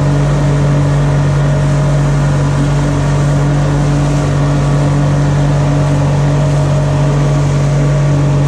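Boat's outboard engine running steadily at trolling speed of about 8 to 10 knots, a constant hum over the rush of the wake and hull through the water.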